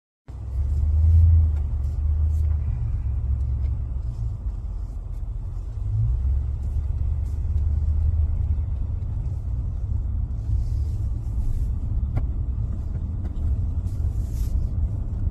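Low, steady engine and road rumble inside the cabin of a moving vehicle.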